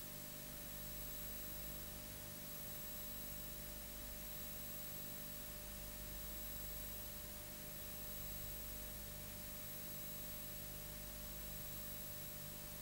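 Steady hiss with a low electrical hum and a few faint, unchanging high whines, the noise floor of the film-to-video transfer; no other sound.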